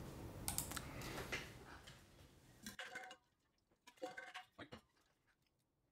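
A few faint, short clicks scattered over quiet room tone, with near silence between them.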